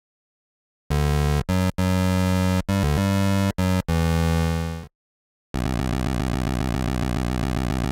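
8-bit style synthesized sound effects: a string of about seven buzzy electronic notes with short breaks, fading out, then after a brief pause a steady buzzing drone with a fast, even pulse.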